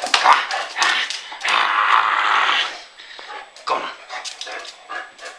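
A dog making growling and whimpering play noises, with one longer growl about a second and a half in and many short scuffling clicks around it.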